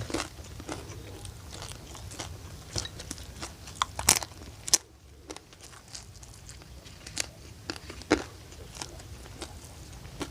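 A person biting and chewing crunchy fried food, with many irregular crunches and a brief lull about five seconds in.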